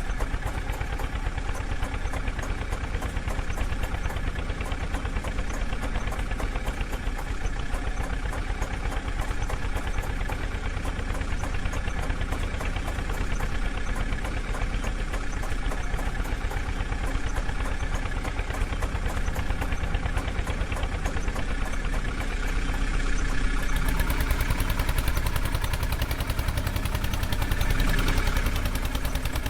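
Heavy diesel engine running steadily. About three-quarters of the way through it grows louder, as if under more throttle.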